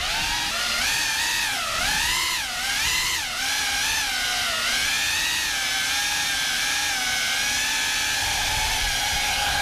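GEPRC CineLog35 cinewhoop FPV drone in flight: its brushless motors and ducted propellers whine. The pitch rises and falls with the throttle for the first few seconds, then holds nearly steady.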